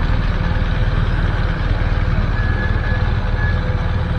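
BMW police motorcycles' boxer-twin engines idling: a loud, steady low rumble.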